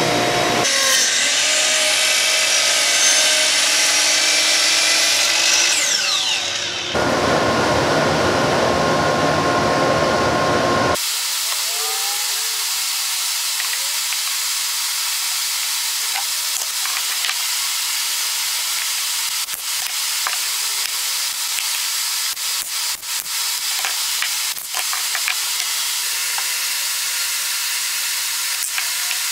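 A table saw cutting through a sheet of Baltic birch plywood for the first several seconds. About eleven seconds in, the sound switches abruptly to a steady hiss with scattered short taps and clicks as cut plywood panels are handled and fitted together.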